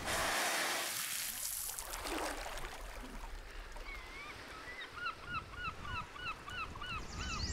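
A loud rush of noise in the first second. Then, from about four and a half seconds in, a bird calls over and over, short hooked notes about three a second.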